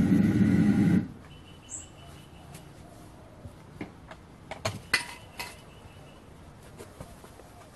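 Furnace burner running with a steady low rush, then cut off suddenly about a second in. Scattered metallic clinks and knocks follow, clustered around the middle.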